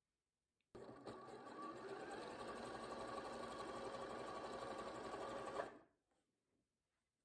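Bernina b38 electric sewing machine running steadily, stitching a zigzag stitch through thick knitted wool and elastic. It starts suddenly just under a second in and stops about five seconds later.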